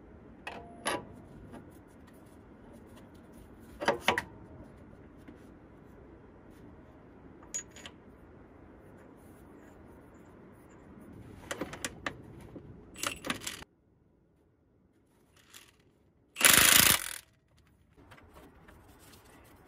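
Metal clinks and knocks from a new crankshaft damper (harmonic balancer) and its mounting bolt being handled and fitted onto the crankshaft by hand. A few scattered single clicks are followed by a quick cluster, then one short loud burst of noise about three quarters of the way through.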